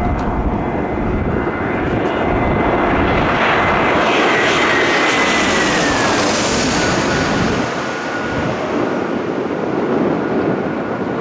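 Jet airliner on landing approach passing low overhead: a loud engine rush swells to a peak, and a thin high whine drops in pitch as it goes over, then the noise fades back. Wind buffets the microphone.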